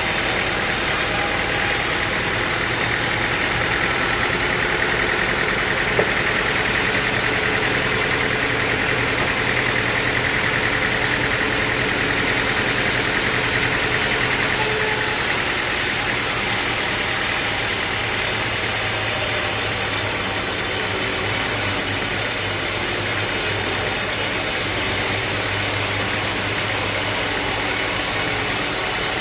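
Sawmill machinery running steadily: an even, engine-like drone with a hiss over it, and one sharp click about six seconds in.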